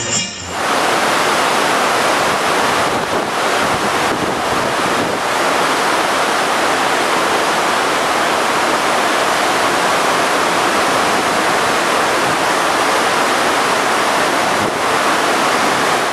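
Steady rushing of churned white water in a cruise ship's wake, with wind on the microphone; it starts abruptly about half a second in.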